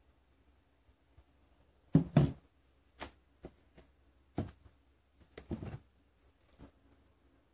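Irregular knocks and thumps of things being handled and set down on a wooden tabletop, about eight in all, the loudest pair about two seconds in.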